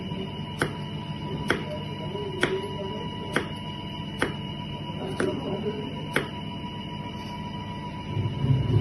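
Chef's knife chopping carrots on a plastic cutting board: single sharp knocks about once a second, seven in all, stopping about six seconds in.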